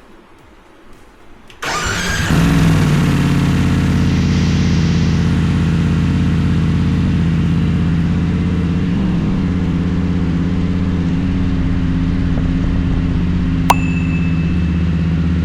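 BMW F850GS Adventure's parallel-twin engine starting about a second and a half in and settling into a steady idle, exhausting through a suppressor fitted in place of the stock resonator box. A short sharp click sounds near the end.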